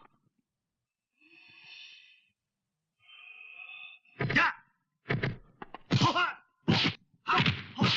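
Kung-fu fight hit sound effects: after two short pitched sounds, a rapid series of sharp whacks begins about four seconds in, roughly one a second or faster.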